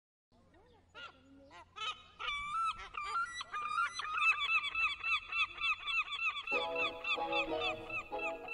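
A flock of birds honking and calling over one another, starting faintly and building into a dense chorus of short, repeated calls; lower calls join about two-thirds of the way in.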